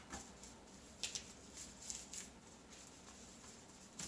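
Faint handling noises: a few light ticks and rustles, scattered and irregular, with no speech.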